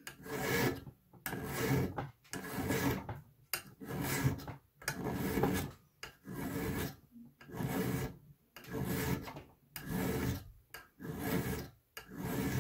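A bastard-cut hand file being pushed across the tip of an old steel screwdriver clamped in a bench vise, sharpening it: about a dozen rasping strokes, roughly one a second, each filed in one direction only with a short gap between.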